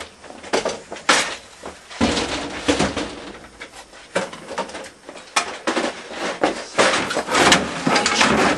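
Irregular clattering, knocking and banging as a bicycle is handled and moved about in a workshop doorway, with metal rattles and thuds coming every second or so and a denser run of clatter near the end.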